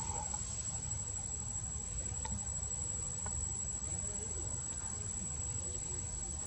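A steady high-pitched insect drone, with a low rumble underneath and a few faint clicks.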